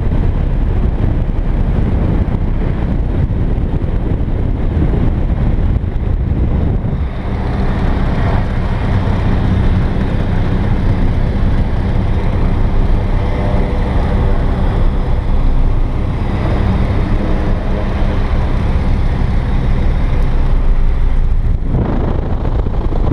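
Single-engine light aircraft's piston engine and propeller running at taxi power. About seven seconds in it turns into a steadier, even engine hum.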